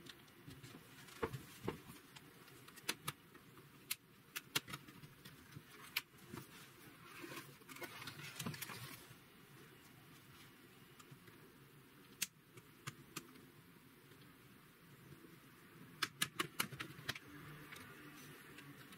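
Scattered light clicks and taps from a laptop and small tools being handled during disassembly, with a quick run of several clicks near the end.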